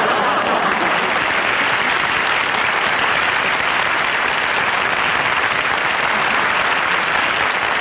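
Sitcom audience applauding a punchline: a steady, even wash of clapping.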